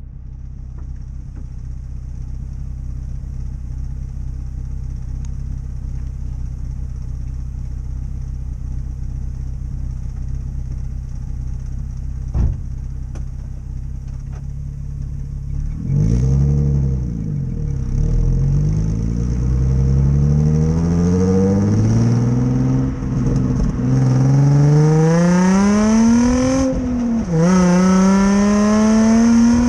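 Nissan 350Z's VQ35DE V6 through its stock exhaust with a big exhaust leak, idling steadily, then revved once. It then pulls away, engine pitch climbing under acceleration, dipping at a gear change about three-quarters of the way in and climbing again.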